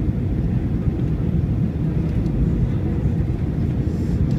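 Steady low rumble inside the passenger cabin of an Airbus A321-211, with a faint steady hum over it.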